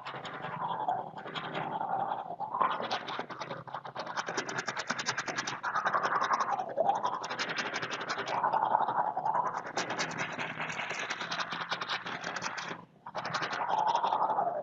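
A person brushing their teeth with a toothbrush: fast, continuous scrubbing strokes of bristles against the teeth inside the mouth, with a short break about 13 seconds in before the brushing resumes.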